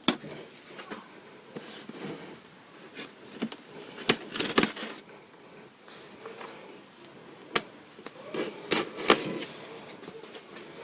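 Hobby knife cutting packing tape on a styrofoam box, with scattered clicks, short scrapes and tearing of tape, and a few faint squeaks.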